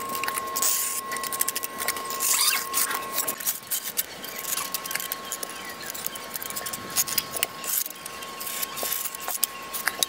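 Small steel pointing trowel scraping and scratching along wet cement render in quick, irregular strokes, with a thin steady high tone underneath.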